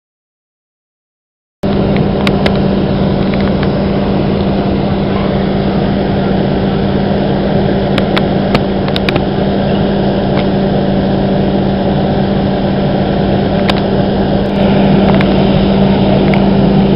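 A fire engine's engine and pump running steadily, feeding the charged hose lines, heard as a loud constant drone with a steady hum. It sets in after a second and a half of silence and grows a little louder near the end.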